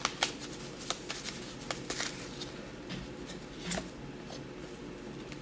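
Oracle cards being handled, with scattered light clicks and rustles as a card is drawn and laid out.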